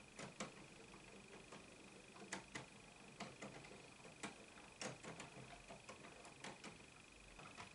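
Irregular light plastic clicks and ticks from the LEGO Icons 10318 Concorde's Technic landing-gear mechanism as the main gear legs swing down, over a faint steady high-pitched whine.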